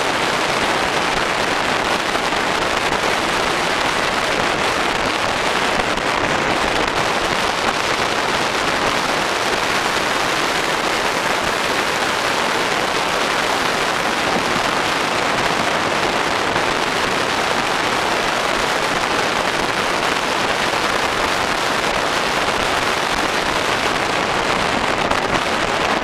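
Steady rushing noise of an Ivatt steam locomotive running at speed, picked up with the microphone held out of the window in the slipstream, so wind noise on the microphone dominates and no separate exhaust beats stand out.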